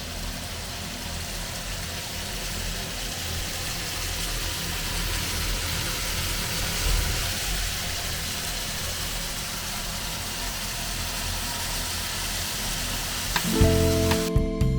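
Food sizzling steadily as it fries in a hot pan. Piano music comes in near the end.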